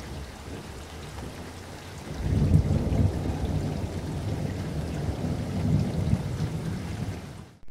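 Heavy rain beating on a moving car, heard from inside the cabin, a dense low rush that grows louder about two seconds in.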